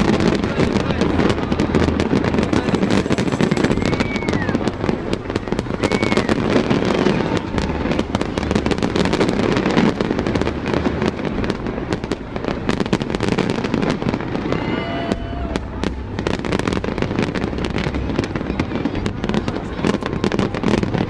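Fireworks display: continuous dense crackling and popping over the chatter of a large crowd, with a few short whistles along the way.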